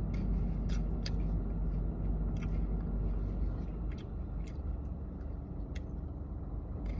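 A person chewing food, with short crunchy clicks from the mouth scattered through, over a steady low rumble.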